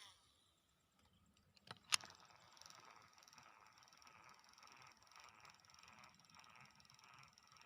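Fishing reel being wound in, a soft, fast mechanical whirring and clicking that starts after a sharp click about two seconds in.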